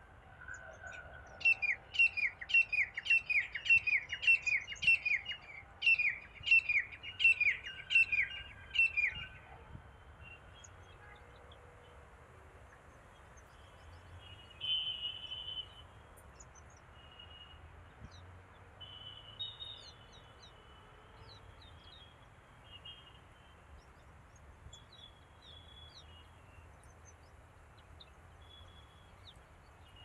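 Asian green bee-eaters calling: a run of short, sharp, downward-sliding chirps, about two a second, that stops after several seconds. Fainter, scattered chirps follow.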